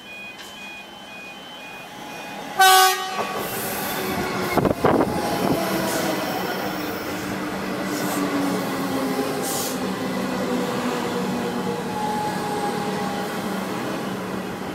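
Melbourne X'Trapolis 100 electric suburban train sounding one short horn blast about three seconds in, then a couple of sharp clunks as its carriages get moving, followed by the building rumble of wheels on rails and motor whine as the train runs along the platform.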